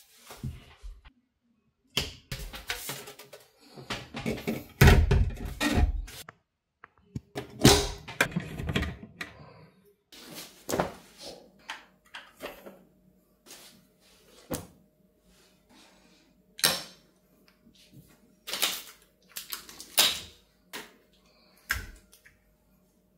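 Handling noises: rustling, rubbing and low thumps as a plastic bracket with adhesive pads is pressed and fitted, then a series of separate clicks and knocks, one every second or two, as small plastic and metal items are set down on a hard countertop.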